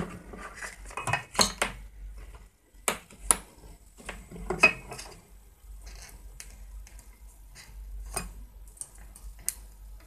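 Irregular clicks and light metallic clinks from multimeter test probes being set against a refrigerator compressor's terminal pins and a clamp meter being handled, with the sharpest clinks in the first five seconds and softer ones after.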